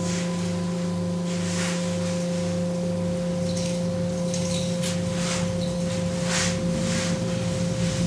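Singing bowl ringing on with a steady, sustained low tone, its sound wobbling in slow pulses about twice a second. Faint, soft swishes come and go over it.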